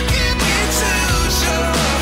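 Background pop-rock music, an instrumental passage with no singing.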